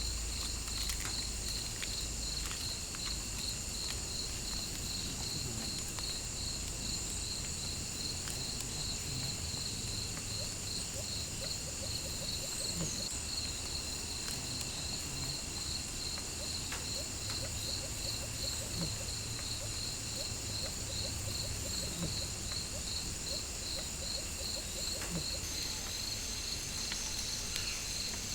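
Forest insect chorus of crickets or katydids: a steady, fast-pulsing high trill over a continuous higher whine, with a few short low calls now and then.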